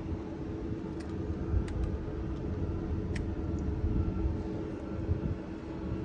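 Steady low mechanical rumble with a faint steady hum, and a few light clicks.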